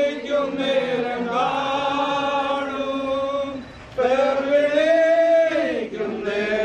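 Mourners singing a slow funeral hymn together in long, drawn-out notes, with a short break about four seconds in.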